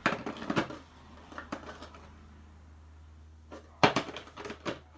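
Snap-on screwdrivers clicking and knocking against their moulded plastic storage tray as they are lifted out and set back in. A quick cluster of knocks comes at the start, a few lighter taps in the middle, and another cluster near the end.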